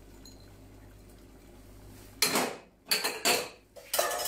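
A spoon scraping and clinking against a bowl and a copper saucepan as grated provola cheese is worked in. It comes as several short strokes, beginning about two seconds in after a quiet start.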